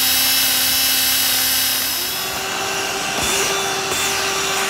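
Cordless drill spinning an eraser wheel against car paint to strip old adhesive residue: a steady motor whine that steps up in pitch about two seconds in.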